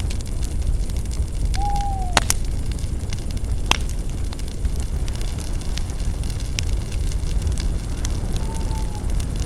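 Spruce branches burning in a bonfire, crackling with scattered sharp pops over a steady low roar; the loudest pops come about two and four seconds in. Two brief whistling tones, one falling slightly about two seconds in, another near the end.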